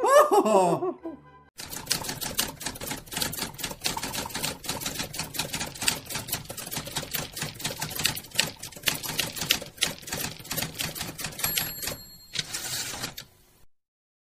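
Typewriter typing: rapid, uneven keystrokes clacking for about eleven seconds as a title is typed out. Near the end a bell rings, followed by a short rasp.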